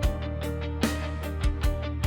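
Background music: a pop track with guitar and a steady beat.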